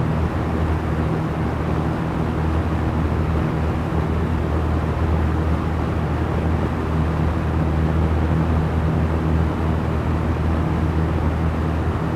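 Small electric fan running steadily: an even rush of moving air over a low, constant motor hum.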